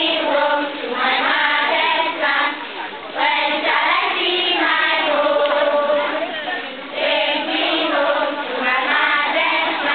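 A group of schoolchildren singing a marching song together in unison while they march, in phrases with short breaks about three and seven seconds in.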